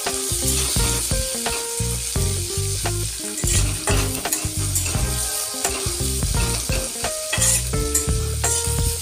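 Sliced onions sizzling as they fry in mustard oil in a steel kadhai, with a metal spatula scraping and stirring against the pan. Instrumental background music plays underneath.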